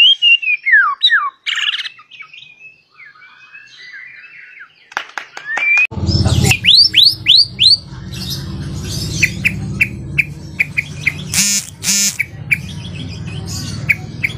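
Songbird singing a varied song of clear gliding whistles, quick chirps and harsher notes. About six seconds in, a steady low background hum comes in under the song.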